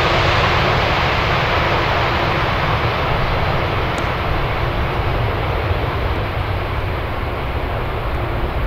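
Boeing 747-400's four General Electric CF6 turbofans running during the landing rollout, a loud, broad jet rumble with a faint steady hum, slowly fading as the airliner slows down the runway.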